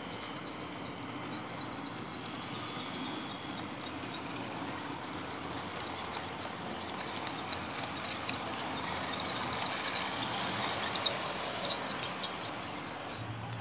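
HO-scale 1/87 model Argo Parahyangan train running along its track, a steady rolling noise with scattered faint clicks, a little louder in the second half of the pass.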